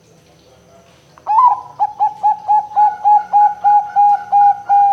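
Bangkok-line zebra dove (perkutut) cooing. About a second in, a rising note opens a quick run of about a dozen short coos, roughly four a second, which ends in a drawn-out note.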